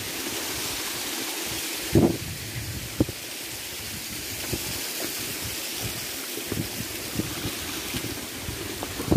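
Steady rushing of the waterfall's stream, with a few short thumps, the loudest about two seconds in and another at the end.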